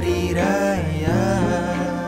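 Male voices singing together, drawing out a melismatic phrase over an orchestral accompaniment of sustained low notes.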